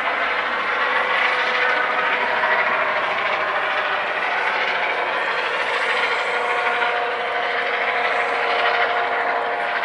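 Light twin-turbine helicopter of the EC135 type, with its shrouded fenestron tail rotor, climbing away after lift-off: steady turbine whine over rotor noise, with a second tone coming in about two-thirds of the way through.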